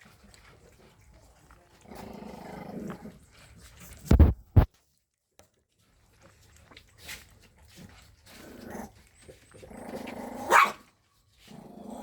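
Shih Tzu dogs growling and giving short barks over their food, in two stretches. Two loud thumps come about four seconds in.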